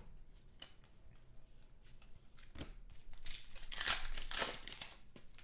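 Foil trading-card pack wrapper being torn open and crinkled, with a dense rustle a little past the middle. Before it come a couple of short sharp taps.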